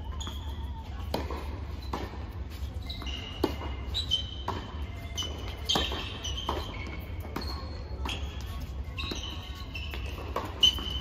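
Tennis rally on an indoor hard court: sharp racket strikes and ball bounces echoing in a large hall, with short high squeaks of sneakers on the court surface, over a steady low hum.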